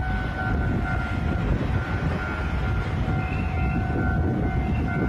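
Train running by with a steady low rumble; faint thin steady tones come and go over it.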